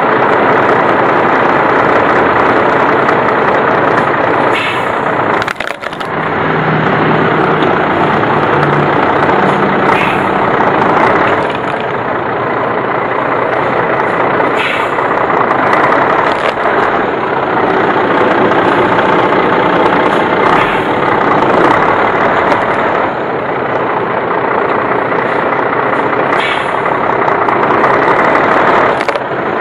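Diesel engine of a 10-ton truck idling close by, loud and steady, with a few brief clicks.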